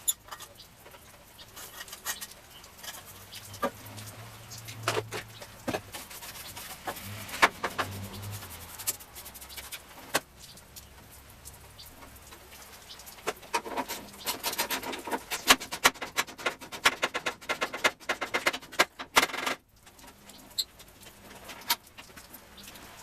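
Hand tools working on a car body: scattered metallic clicks and knocks, then about six seconds of rapid clicking and rattling in the second half that stops abruptly.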